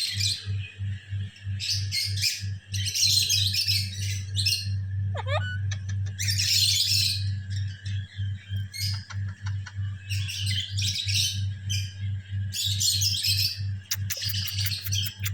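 Parrots chattering and squawking in repeated bursts, with one quick swooping call about five seconds in. A low pulsing hum runs underneath.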